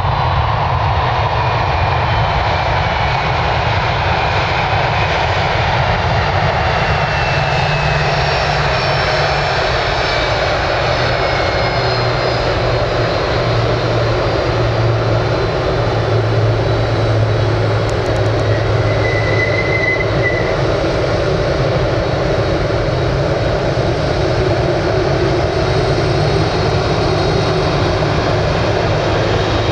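Boeing 767-300ER's twin jet engines running loudly and steadily as the airliner passes, with whining tones sliding slowly down in pitch over a deep low hum.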